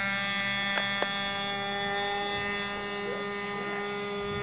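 Radio-controlled model airplane in flight, its motor and propeller giving a steady buzzing whine that fades a little near the end.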